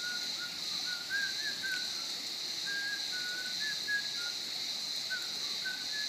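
Steady high-pitched insect drone with short, whistled bird notes scattered through it.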